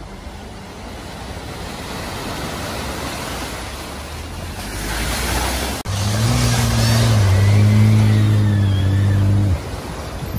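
Cars driving through deep floodwater at a ford. First comes a wash of splashing water that builds over the first few seconds. After a sudden cut about six seconds in, a car ploughs through with a bow wave, its engine running hard and steady under the spray. This stops abruptly near the end, giving way to rushing water.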